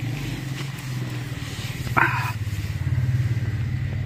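A motor engine running steadily with a low, pulsing hum, such as a motorcycle's. A dog barks once about two seconds in.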